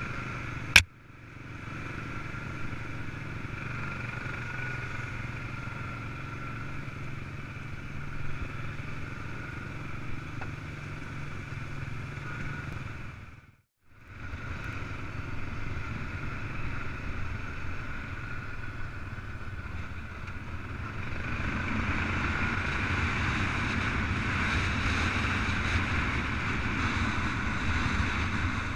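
ATV engine running as the quad rides along a dirt track, with a steady engine note throughout. A single sharp click comes about a second in, the sound drops out briefly about halfway, and it grows louder and rougher over the last third.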